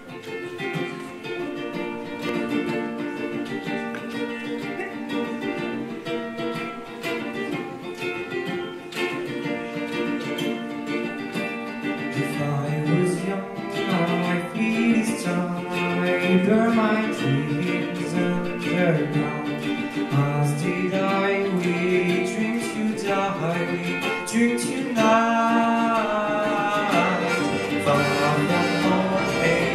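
Live ensemble music: ukulele with violins and other strings playing, then a voice singing the melody from about twelve seconds in, the music growing louder and fuller.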